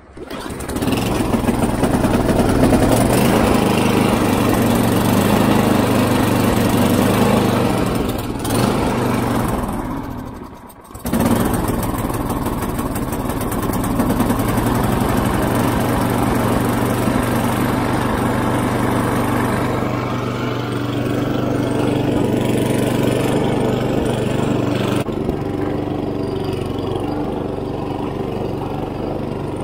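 Snowblower's small gasoline engine catching on the pull cord with the choke on, at its first start of the season, then running steadily. It drops away briefly about ten seconds in and picks up again.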